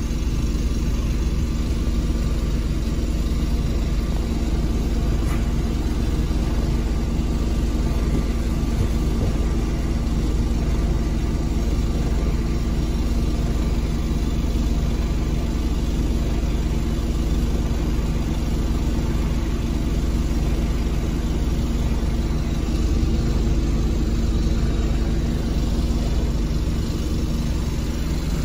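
Dennis Dart SLF single-decker bus's rear-mounted diesel engine running steadily, heard from inside the passenger saloon.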